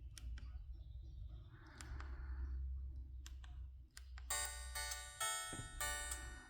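A few sharp button clicks on an LG MG180 mobile phone, then, about four seconds in, one of the phone's ringtones starts playing through its speaker: a melody of short pitched notes, several sounding at once.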